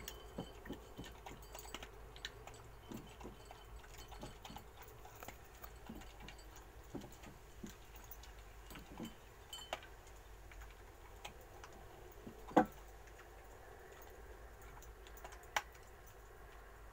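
A dog eating dry kibble from a small ceramic dish: faint, irregular crunching and clicking of kibble and teeth against the dish, with two sharper clinks near the end.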